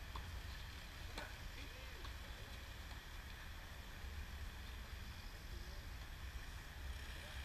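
Wind rumbling on the microphone, with faint tennis ball hits off rackets at a distance; one is clearer about a second in.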